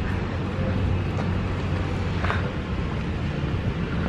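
Steady low rumble of street traffic, an engine-like hum with wind noise on the microphone.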